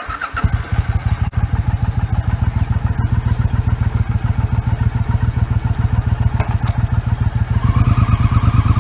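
Motorcycle engine running with a steady, rapid beat, picking up slightly near the end.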